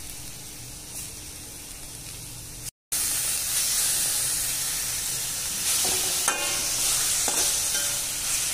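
Chopped green chili, ginger and garlic sizzling in hot oil in a wok, stirred and scraped with a metal perforated spatula. The sound drops out briefly about three seconds in, then raw chicken pieces sizzle louder as they are stirred into the paste, with a few scrapes of the spatula on the pan.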